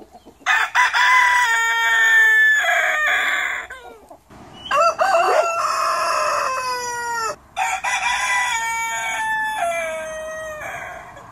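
Roosters crowing: three long cock-a-doodle-doo crows one after another, each drawn out and dropping in pitch at its end.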